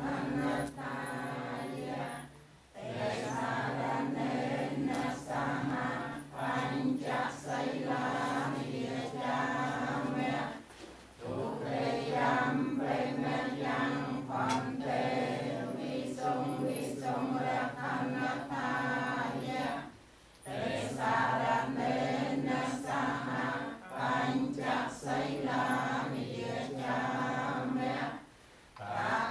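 A group chanting Buddhist prayers in unison on a steady low recitation pitch. The chant breaks off briefly for breath about every nine seconds.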